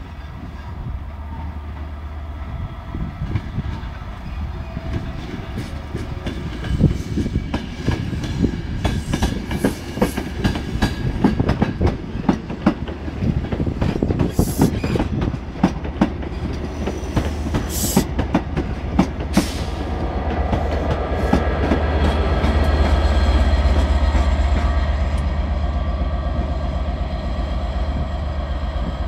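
Passenger train running slowly through the station, its wheels clicking quickly and unevenly over rail joints and pointwork as Mark 3 coaches pass. From about twenty seconds in, the trailing Class 67 diesel locomotive passes with its two-stroke V12 engine running in a loud, low, steady hum, loudest a few seconds later.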